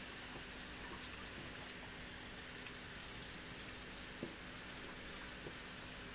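Steady rain falling, an even hiss with a few faint taps.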